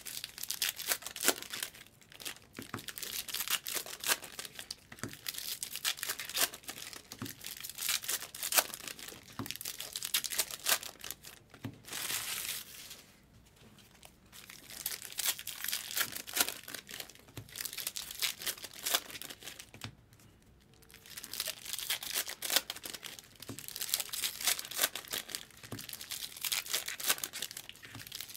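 Trading card pack wrappers being torn open and crinkled, in long runs of crackling with two short lulls, about halfway and about two-thirds through.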